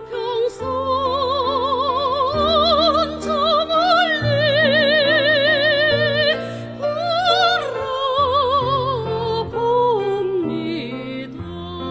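A soprano sings a Korean art song in operatic style with wide vibrato over instrumental accompaniment. She holds a long note in the middle, rises briefly, then descends near the end.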